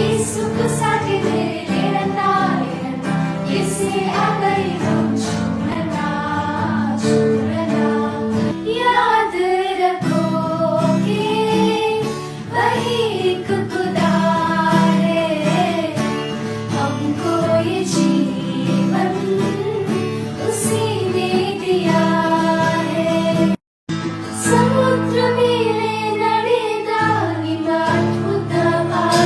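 Telugu Christian worship song: a singing voice carries a melody over chordal accompaniment that includes plucked strings. The track cuts out to silence for a split second about two-thirds of the way through.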